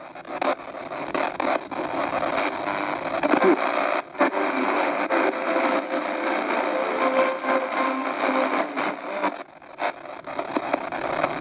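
Static and hiss from the speaker of a Souness SNI-F100 portable DSP radio as its tuning knob is turned across the shortwave band between weak stations. The noise briefly cuts out twice, about four seconds in and near the end, and a faint steady tone comes through about seven seconds in.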